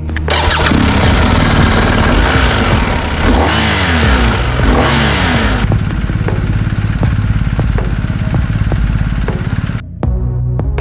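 BMW R1250GS's 1254 cc boxer twin started on the button and catching at once. It is revved in a few quick blips and then settles to an even idle. It cuts off about ten seconds in.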